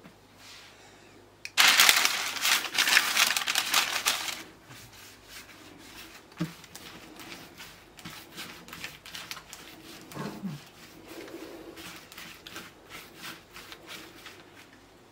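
A sheet of baking paper crinkling loudly for about three seconds as it is handled. After that come softer rubbing and light irregular ticks of hands rolling dough on a plastic oilcloth tablecloth.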